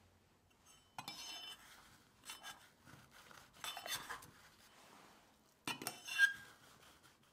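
A metal utensil scraping and clinking against stainless steel ring molds while pressing a crushed-biscuit base into them, in four short bouts. A brief metallic ring near the end is the loudest sound.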